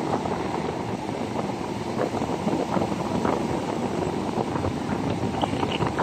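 Wind buffeting the microphone in a steady, uneven rush while riding on the roof of a moving jeepney, with the vehicle's road noise underneath.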